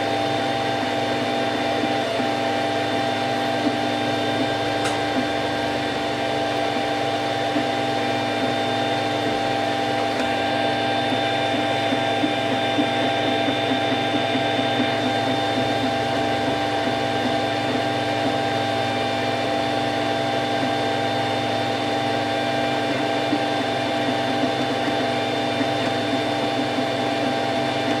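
Cocoon Create (a rebadged Wanhao Duplicator i3) desktop 3D printer running a print: a steady mechanical whine of several tones at once, from its stepper motors and cooling fans, with the tones shifting slightly now and then as the head changes moves.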